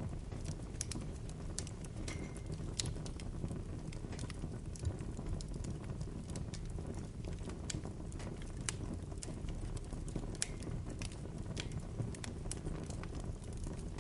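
Bonfire burning: a steady low rumble with irregular sharp crackles and pops scattered throughout.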